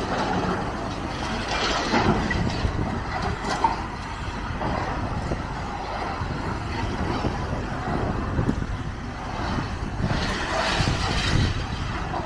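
Demolition machinery at work: an engine running steadily under the scrape and clatter of masonry and rubble being broken down, with louder scraping episodes about two seconds in and near the end.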